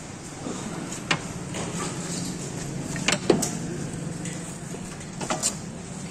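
Sharp metal clinks and knocks of utensils against aluminium cooking pots and trays, five in all, coming in pairs about two seconds apart, over a steady low hum.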